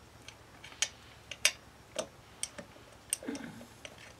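Irregular sharp clicks and light taps from parts being handled at a Yamaha YBR 125's right-side crankcase cover during engine reassembly, about ten in all, with a short low scrape about three seconds in.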